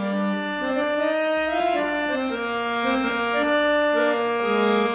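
Background music: an instrumental passage of a Bengali song between sung lines, a melody of held notes stepping up and down.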